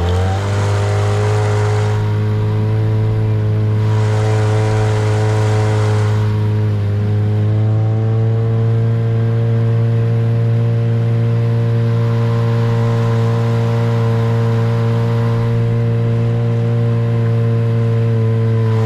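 Boat motor throttling up, its pitch rising at the start, then running steadily at speed as the boat travels to deeper water.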